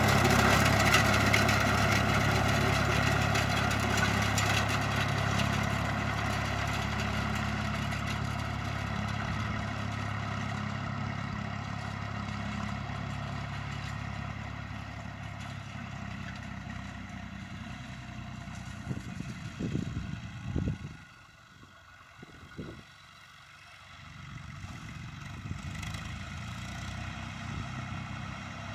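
Massey Ferguson 135 tractor engine running steadily, growing fainter as the tractor pulls away, with a short drop in level about three quarters of the way through before it comes back.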